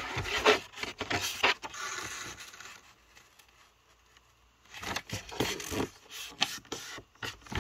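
A sheet of A4 paper rustling and crinkling as it is folded and its creases are pressed flat by hand. The handling stops for nearly two seconds in the middle, then starts again.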